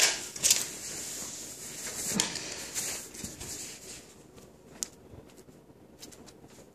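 Close handling noises: a sharp click at the very start and another about half a second in, then rustling and a few lighter clicks as hands move small objects right beside the microphone, growing fainter over the second half.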